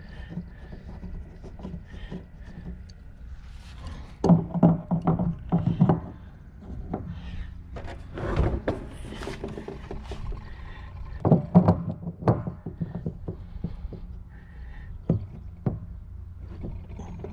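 Hand-work knocks and clicks on a hollow plastic rain barrel as PVC fittings and a wrench are worked at its bulkhead fitting. The knocks come in three bunches, with quieter handling noise between them.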